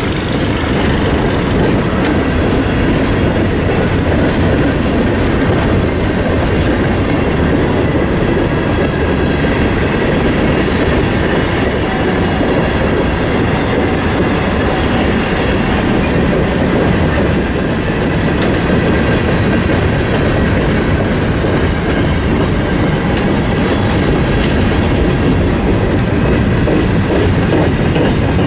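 Freight train of covered hopper cars rolling past at close range: a steady rumble of steel wheels on the rails, with clicking as the wheels cross the rail joints.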